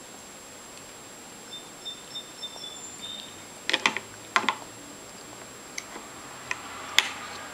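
Toddler's fork knocking and clattering on a plastic high-chair tray: a few light taps, a cluster of louder knocks about four seconds in, and a sharp click near the end.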